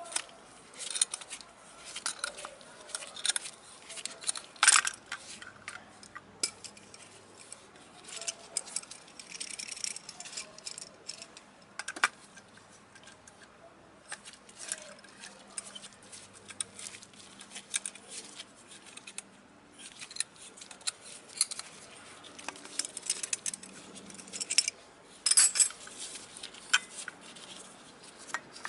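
Small metal parts and hand tools clicking, tapping and scraping in irregular handling, with a few louder clinks, such as one about five seconds in and a cluster near the end, while scooter rear brake parts are worked on.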